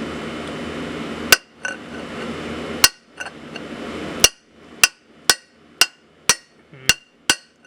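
Hammer blows on a metal pipe used as a drift, driving a tight-fitting turbo manifold onto the cylinder head studs: nine sharp ringing metal strikes, the first three slow and spaced apart, then about two a second.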